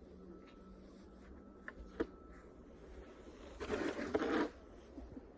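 A short grainy scrape and crunch of snow, about a second long, starting about three and a half seconds in, with a single faint click near the two-second mark.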